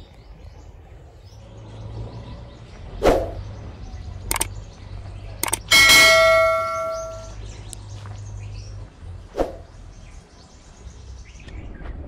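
Subscribe-button animation sound effects: a few sharp clicks, then a bright bell ding about six seconds in that rings out for about a second and a half, and one more click near the end, over a low steady hum.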